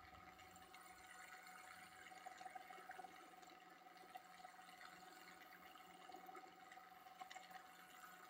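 Near silence, with a faint steady hum from a wood lathe turning the pen blank at low speed (about 450 rpm) while it is wet-sanded.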